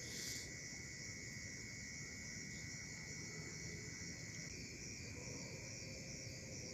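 Crickets and other night insects calling: a high, pulsing trill over a steady lower drone, which steps slightly higher about two-thirds through. A brief rustle sounds at the very start.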